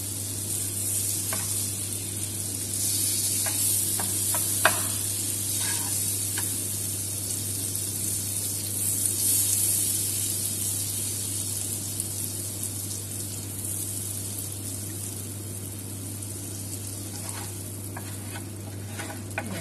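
Butter sizzling as it melts and foams in a nonstick frying pan, with a wooden spoon stirring it and now and then ticking against the pan. A steady low hum runs underneath.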